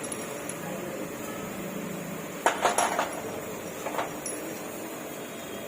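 Metal clinking from engine parts and tools during engine assembly: a quick cluster of sharp clinks about two and a half seconds in and a lighter clink about a second later, over steady background noise.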